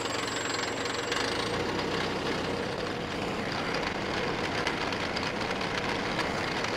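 Kubota compact tractor's diesel engine running steadily, driving a PTO post hole auger as it begins boring into dry, clay-laden soil. It is struggling to dig.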